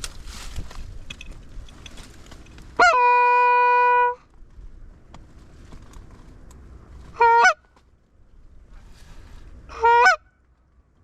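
Loud Canada goose calls: one long, steady drawn-out note about three seconds in, then two short honks that break upward in pitch, a few seconds apart. Wind rumbles on the microphone between them.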